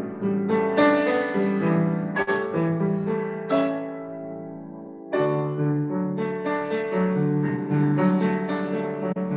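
Upright piano playing a lyrical classical-style piece, heard over a video call. A phrase dies away about four seconds in, and a fuller, louder phrase begins about a second later.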